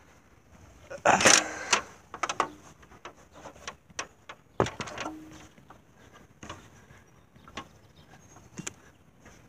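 A ladder being set up against the camper trailer's side, with a loud clatter about a second in, then scattered knocks and clanks as it is climbed.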